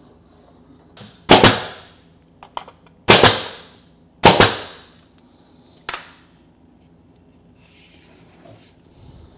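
Bostitch pneumatic brad nailer firing three times, driving brads through a glued trim board into a toe-kick base: three sharp shots, the first about a second in and the rest a second or two apart, each trailing off briefly, with a few lighter clicks between them.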